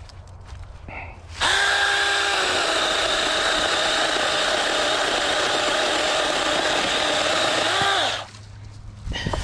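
Small 6-inch electric chainsaw starting up about a second and a half in, running at full speed through wood for about six seconds, then winding down.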